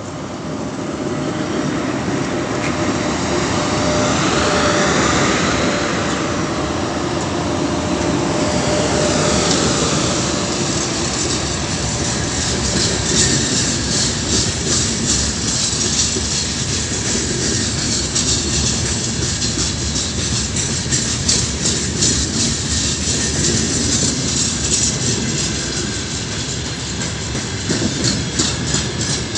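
Four-section 2ES5K 'Ermak' electric locomotive set going by under power, accelerating a heavy freight train, with a whine that rises and falls as the units pass. Open freight wagons then roll past with a rapid clatter of wheels over rail joints.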